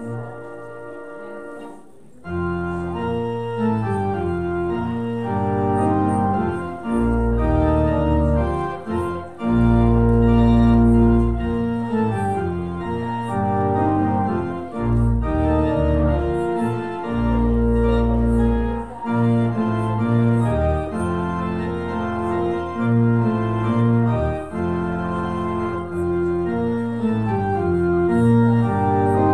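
Organ playing a slow postlude of sustained chords over deep held bass notes, with the chords changing every second or so. It is softer for about the first two seconds, then the full chords come in.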